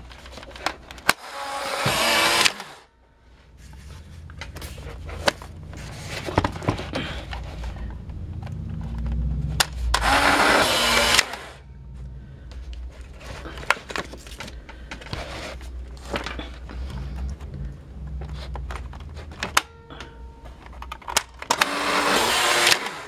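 Polaroid OneStep 600 instant camera's motor whirring three times, about a second and a half each, as it ejects first the film pack's dark slide and then a print after each shutter click. Sharp clicks and knocks from the camera being handled fall between the runs.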